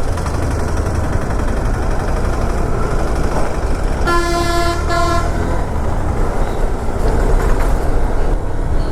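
A vehicle horn sounds once for about a second, about four seconds in, over the steady low rumble of a motorcycle ride through traffic.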